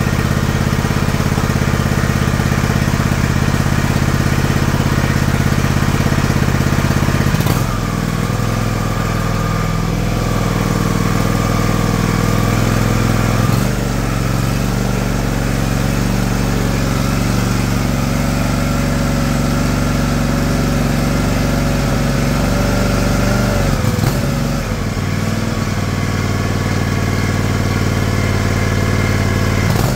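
John Deere LX178 lawn tractor's Kawasaki liquid-cooled twin-cylinder engine running high on its newly fitted carburetor, with the throttle cable unhooked. Its speed drops about seven seconds in and shifts again twice as the carburetor linkage is moved by hand.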